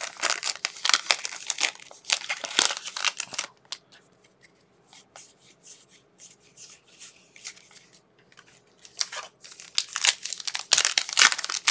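Trading-card pack wrappers crinkling and tearing as packs are opened and handled: a busy crackling stretch of about three seconds, a quieter spell with a few light clicks, then more crinkling near the end.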